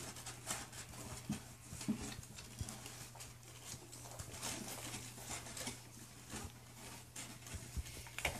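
Young puppies scrabbling over their mother in a wooden whelping box: irregular scratches, taps and rustles of paws on the wood and bedding, with a few short low puppy grunts.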